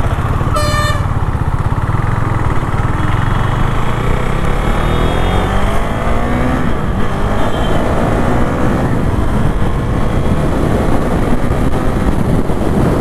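Motorcycle accelerating hard onto the highway, its engine pitch rising in several climbs as it shifts up through the gears, under heavy wind rush on a helmet-mounted camera. A short horn toot sounds just under a second in.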